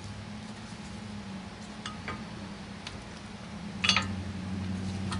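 Metal hand tools clinking against the brake caliper as a 12mm socket or wrench works a caliper bolt: a couple of light clicks about two seconds in, then a louder ringing clink near the end, over a steady low hum.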